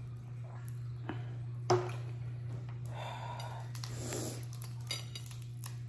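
Boiled crawfish being peeled by hand, the shells cracking with a sharp snap about two seconds in and a few smaller clicks, with two short breaths out through the nose in between, over a steady low hum.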